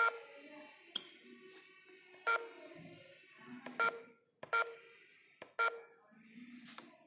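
Keypad of an eSSL X990 biometric fingerprint terminal beeping as keys are pressed: about five short, same-pitched confirmation beeps spaced irregularly while a name is typed in, with a sharp click about a second in.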